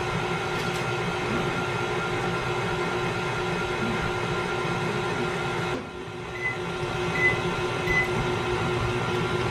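KitchenAid stand mixer running steadily on a low stir. About six and a half seconds in, a microwave keypad gives three short beeps as it is set to melt a stick of butter.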